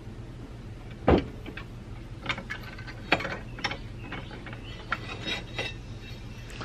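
Metal clanks and clicks from a bench vise being loosened and a steel lawn mower blade being lifted out of its jaws. One louder clank comes about a second in, then a string of lighter knocks.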